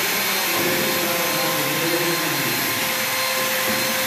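Handheld electric power tools running free at full speed with no load: a steady high motor whine over a rushing noise.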